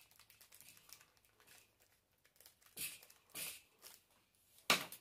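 Faint handling sounds of small hardware in the hands: light scattered clicks, then a few short rustling scrapes, the sharpest one near the end.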